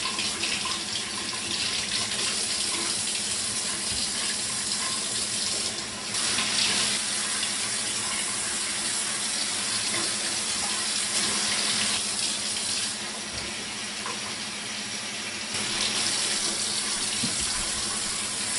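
Water running from a tap into a sink as eggs are washed under it. The running-water sound is steady and shifts in tone a few times as the flow is interrupted and redirected.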